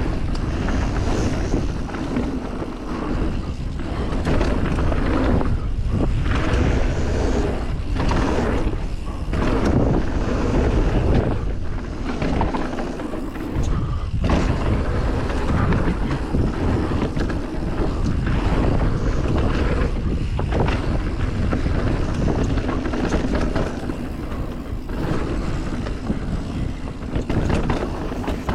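Commencal Meta SX mountain bike ridden fast down a dirt flow trail: steady wind rush on the microphone mixed with tyres rolling over dirt and the bike rattling, the noise dipping briefly now and then.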